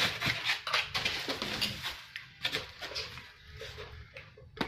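Pliers tightening a nut on a metal lamp bowl: a run of small metallic clicks and scrapes, busiest in the first two seconds, then sparser, with a sharper click near the end.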